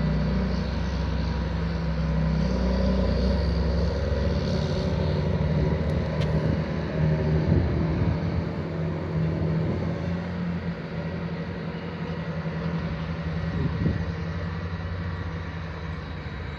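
Diesel engine of heavy farm machinery running steadily with a low rumble, easing off slightly about two-thirds of the way in.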